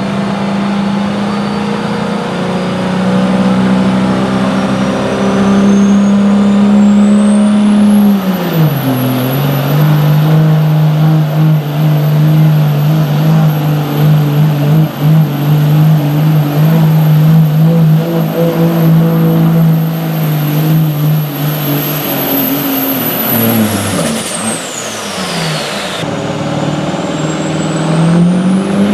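Turbocharged diesel pickup at full throttle pulling a weight sled: the engine runs hard while a turbo whine climbs to a steady high scream about eight seconds in, and the engine note drops as it takes the load. Near the end the engine backs off and the whine falls away, then another pickup's engine revs up with its turbo whine rising.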